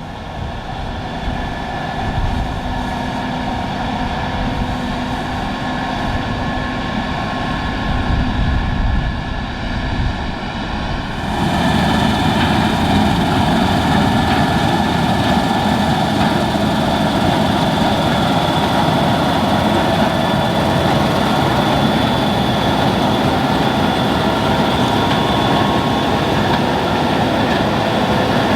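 Case IH 6160 Axial-Flow combine, with its 8.7-litre diesel engine, running while harvesting wheat: a steady mechanical drone with several whining tones. About eleven seconds in it becomes louder and fuller.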